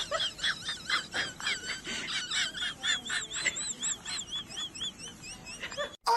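Rapid, high-pitched chirping calls from an animal, several a second, each a quick rise and fall in pitch, ending abruptly near the end.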